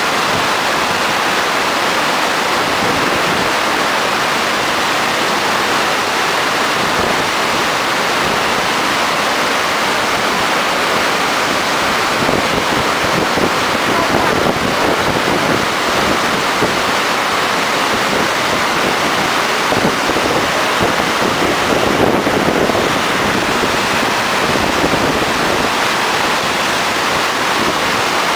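Loud, steady rush of white water pouring over the stepped face of a river weir and churning in the standing waves below it.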